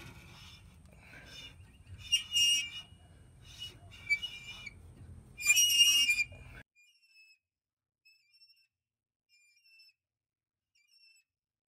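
Hand reamer turning through the kingpin bushings of a VW bus front-beam spindle, the metal squealing in three loud bursts as it cuts. The sound stops abruptly about six and a half seconds in, leaving faint short bird chirps.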